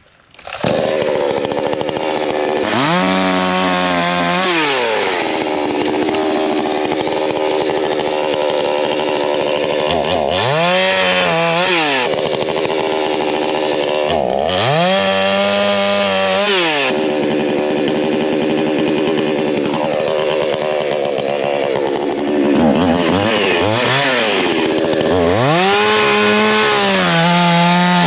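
Coocheer 62cc two-stroke gas chainsaw running, revved up to high speed and let back down about four times, with steadier lower running between the revs.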